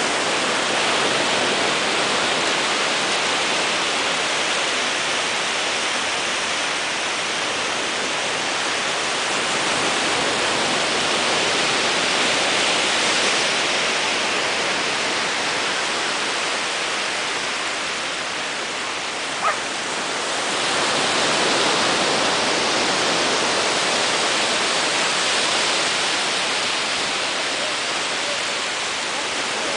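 Ocean surf: small waves breaking and washing up the beach in a steady rush that swells and eases. A single brief sharp sound cuts through about two-thirds of the way in.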